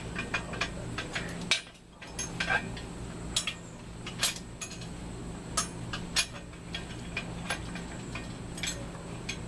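Irregular sharp metallic clinks and taps of hand tools on metal parts, a dozen or so spaced unevenly, over a steady low hum.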